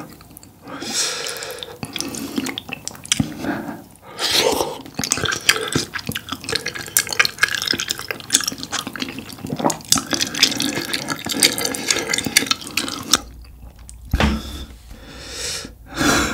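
Slurping and chewing of sauce-coated flat Chinese glass noodles: wet, sticky smacking with many small clicks and louder slurps.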